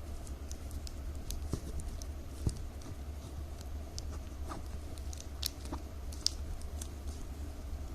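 Small crinkles and clicks of strips of plastic milk-powder-bag packaging being folded and woven by hand, irregular and sparse, over a steady low hum.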